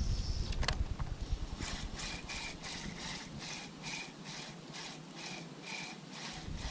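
Spinning reel being cranked on a lure retrieve: a rhythmic whirring tick about three times a second, starting a couple of seconds in. Wind rumbles on the microphone at the start.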